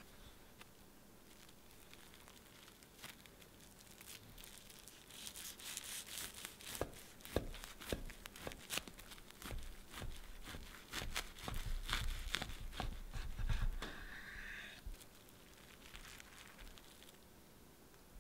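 Kitchen knife sawing through cling film and a soft bread-and-cream cake: plastic wrap crinkling and tearing, with sharp clicks and low knocks of the blade on the wooden cutting board. It starts a few seconds in and dies away near the end.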